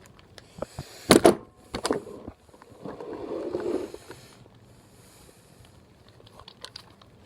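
Handling of a hard plastic lock package: scattered clicks and knocks, two louder ones about one and two seconds in, then a short rustle.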